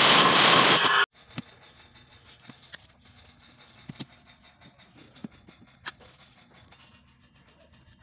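Bench circular saw cutting through a thin board, loud and high-pitched, cutting off suddenly about a second in. Then faint taps and handling noises as the board is moved on a wooden table.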